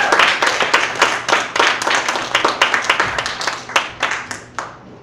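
Theatre audience clapping, thinning out to a few separate claps and dying away near the end.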